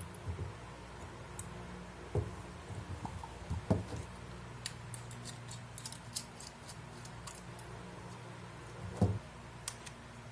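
Small sharp clicks and light taps of hard parts being handled, with a few soft knocks, over a steady low hum.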